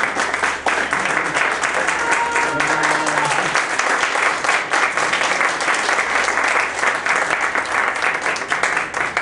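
Audience applauding steadily, a continuous patter of many hands clapping.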